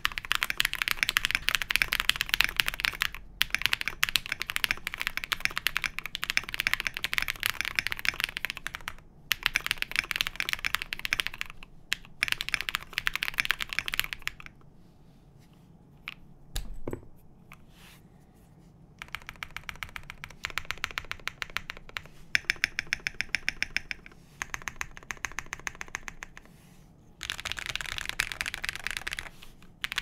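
Fast typing on a Mode SixtyFive mechanical keyboard with lubed Zaku switches (Krytox 205g0), a POM half-plate and PBT keycaps: a dense run of keystroke clacks with a few short breaks. Near the middle the typing stops for a few seconds, with a single soft thump in the lull, then resumes.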